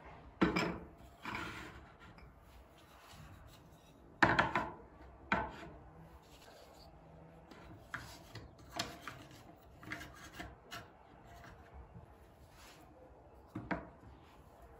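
Household objects being handled and rubbed on hard surfaces: a series of irregular knocks and scraping rubs, the loudest about half a second in and around four to five seconds in.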